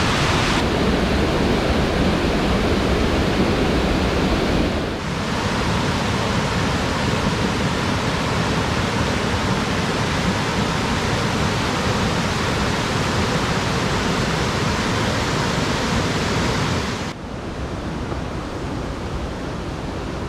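A 40-ft waterfall running high, pouring into its basin close by: a loud, steady rush of falling water. The sound changes abruptly about five seconds in and turns a little quieter about three seconds before the end.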